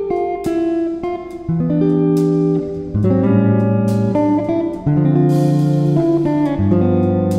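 Background music: a guitar piece of plucked notes and chords that change every second or so.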